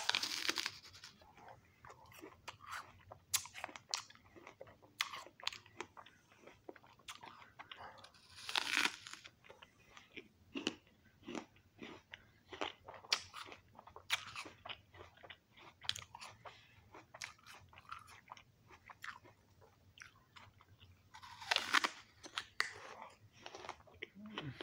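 A red apple being bitten and chewed by a person close to the microphone: repeated crisp crunches all through, with louder bursts of crunching at the start, about nine seconds in and about twenty-two seconds in.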